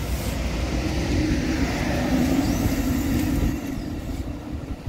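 Amtrak Superliner bilevel passenger cars rolling past as the train pulls into a station, with a steady rumble of wheels on the rails. The sound gets a little quieter near the end.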